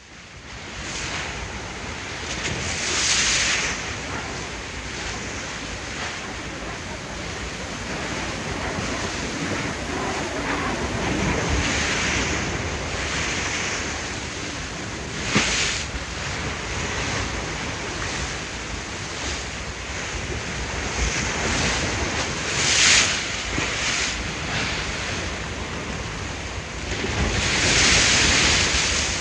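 Ocean waves washing in, a steady rushing surf with several louder surges as waves break and two short, sharper splashes. The sound fades in at the start.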